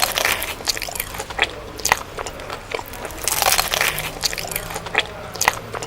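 Crunchy bites and chewing of crispy fried food, with sharp, irregular crunches every half second or so.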